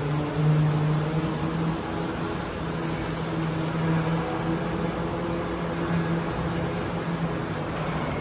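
Mini excavator engine running steadily with an even, slightly wavering hum.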